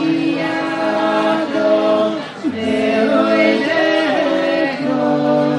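Male vocal trio singing a cappella in harmony, holding long notes, with a brief break about two and a half seconds in.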